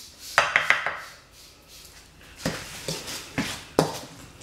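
A utensil knocking and scraping against a stainless steel mixing bowl as tuna salad is mixed: a cluster of clicks in the first second, then a few sharp, separate knocks in the second half.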